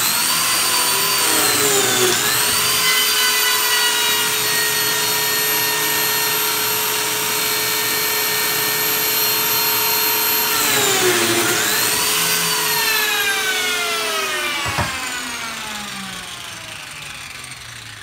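Lamello Zeta P2 joiner motor running at full speed while cutting Clamex P-14 connector slots in thick mitred hardwood. Its pitch dips briefly under load about two seconds in and again about eleven seconds in. Near the end it is switched off and winds down with a falling whine, and a sharp knock comes about fifteen seconds in.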